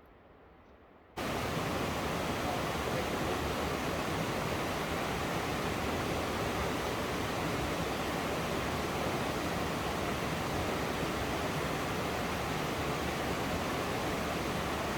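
Steady, even rush of a mountain waterfall, starting abruptly about a second in.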